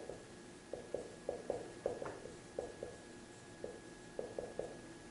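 Dry-erase marker writing on a whiteboard: a string of short, irregular strokes and taps, about a dozen, with one higher squeak about two seconds in.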